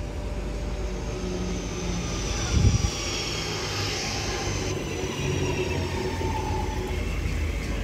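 West Midlands Railway electric multiple unit running in alongside the platform, its wheels rumbling and a high motor whine slowly falling in pitch as it slows. A single loud low thump about two and a half seconds in.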